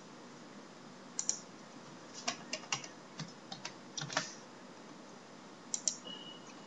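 Typing on a computer keyboard: scattered keystrokes in short, uneven runs.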